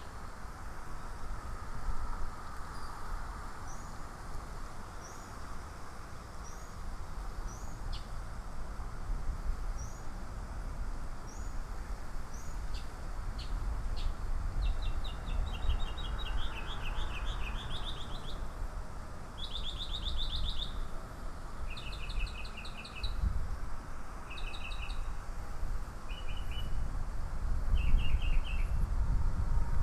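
Songbirds singing: a series of short, high, rising chirps about once a second, then rapid trills repeated in short phrases from about halfway in. A steady low rumble runs underneath.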